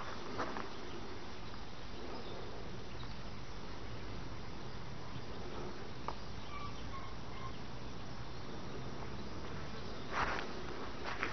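Steady outdoor background noise, with a few faint short chirps near the middle and a brief rustle just after the start and again near the end.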